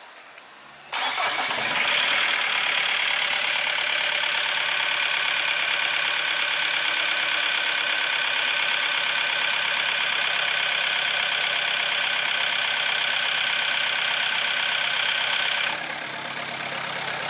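Diesel engine with a Bosch injection pump starting about a second in and running steadily, its level dropping somewhat near the end. It is a test run after adjusting the pump's timing and connecting the wire of its cold-start advance regulator, to cure a harsh, loud running noise.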